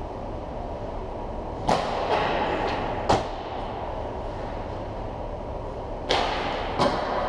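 Hockey shots during a shootaround: sharp cracks of sticks and pucks striking, two close together a second or so apart, then a pause, then two more, over the steady background noise of the ice rink.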